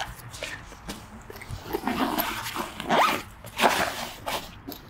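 Short zipper pulls and rustling of nylon bags as the ice-fishing tent's helical pegs are packed away, in separate scrapes with a quick rising zip about halfway through.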